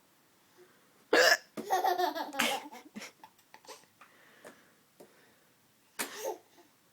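A woman hiccups sharply twice, about a second in and again near the end. A baby's short laugh follows the first hiccup.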